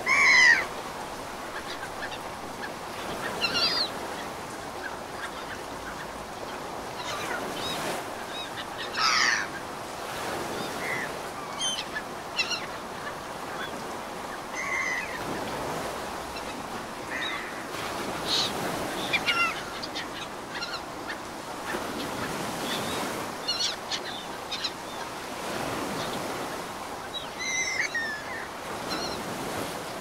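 Ocean waves washing in and out, the surf swelling every few seconds, with birds calling again and again in short calls over it. The loudest call comes right at the start.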